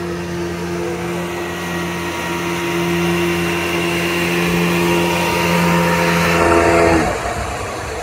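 Steady mechanical whine from a ropeway cable car's cable and pulley running gear, growing louder and then cutting off abruptly about seven seconds in with a short drop in pitch.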